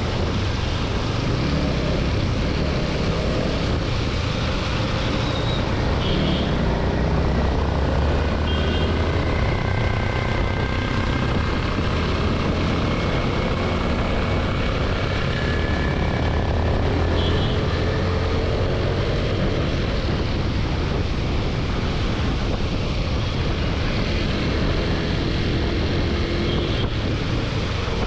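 TVS Apache RTR 160 4V motorcycle under way, its engine running under steady wind and road noise, the engine note rising and falling with the throttle.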